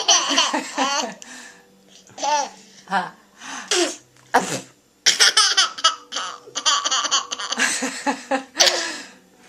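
A young child laughs in repeated bursts, set off by a mock sneeze. The laughter runs nearly unbroken through the second half. There is one short, sharp burst about four and a half seconds in.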